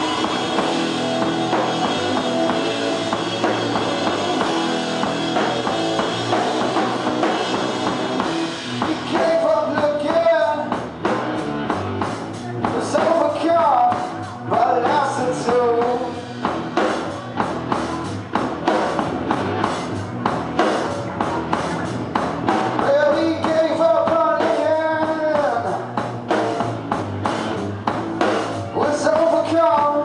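Live rock duo playing: distorted electric guitar and drum kit, with a man singing in phrases from about nine seconds in.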